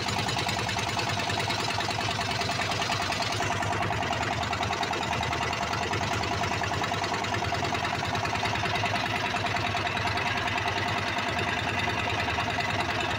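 A wooden fishing boat's engine running steadily, with a rapid, even knocking beat.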